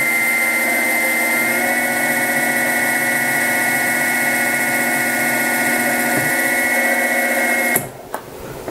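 Mini mill spindle running with a steady whine while a center drill cuts into a brass pulley. The whine steps up slightly about one and a half seconds in, and the sound cuts off suddenly near the end, followed by a short click.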